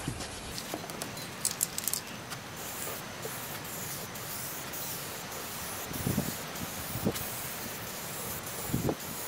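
Aerosol spray can spraying paint, starting about two and a half seconds in as a steady hiss broken by short gaps between passes. A few soft knocks come near the end.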